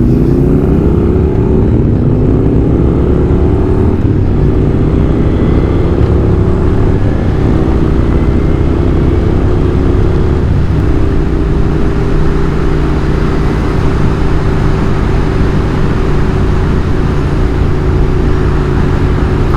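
Moto Guzzi Griso's transverse V-twin pulling away, its pitch climbing and dropping back as it shifts up through several gears, then holding a steady cruise from about halfway on, with wind rush on the rider's microphone.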